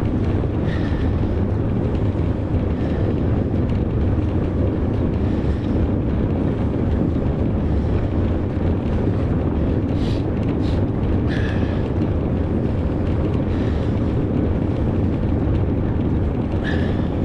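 Steady rumbling noise of a fat bike being ridden through snow: wind buffeting the microphone over the low rumble of the tyres and bike, with a few faint brief squeaks about ten to eleven seconds in.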